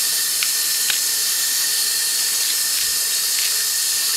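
A steady hiss throughout, with a few faint clicks and snaps as the skin of a green plantain is pulled off by hand.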